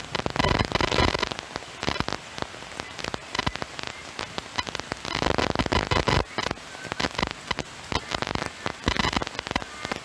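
Heavy rain with a dense crackling patter of drops striking close by. It swells louder about half a second in, again around five to six seconds, and near nine seconds.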